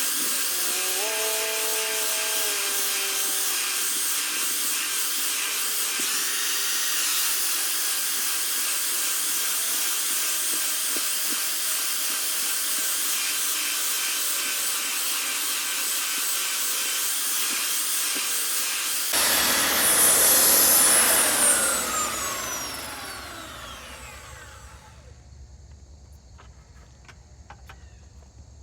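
Makita 9403 4x24 belt sander running steadily while sanding rough white oak. About 21 seconds in it is switched off and its motor and belt wind down with a falling whine over a few seconds, leaving a few faint clicks.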